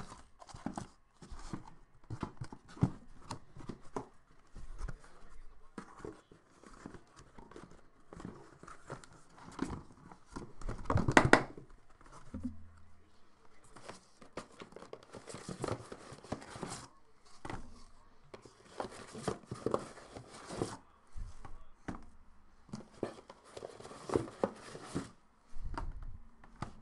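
Cardboard shipping case being opened by hand: tape and cardboard tearing, flaps rustling, and boxes knocking as they are lifted out and set down. There is a longer, louder tear about halfway through.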